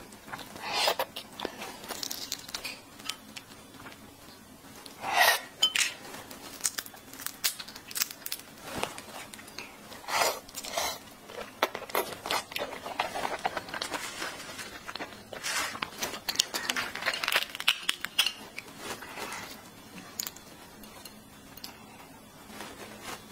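Large cooked red shrimp being peeled by hand close to a clip-on microphone: the shell and legs crackle, snap and tear in quick small clicks. A handful of louder crunching, wet bursts of biting and sucking at the meat stand out among them.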